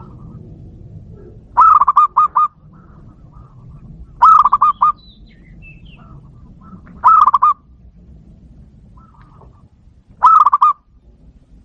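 Zebra dove (perkutut) cooing: four loud phrases about three seconds apart, each a quick run of four or five clipped coo notes, with fainter calls between them.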